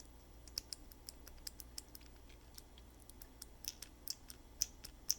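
3D-printed key switch prototype being pressed over and over: many light, quick, irregular clicks, a few of them louder towards the middle and end.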